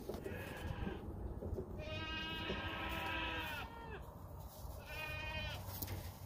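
Newborn Savanna goat kid bleating three times, a short call, then a long one, then another short call.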